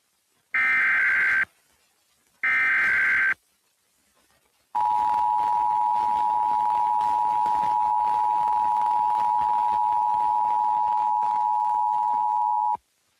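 Emergency Alert System tones on FM radio: the last two bursts of the buzzy SAME data header, each just under a second, then after a short gap the steady two-tone attention signal (853 and 960 Hz) held for about eight seconds before cutting off. They open a National Weather Service severe thunderstorm warning.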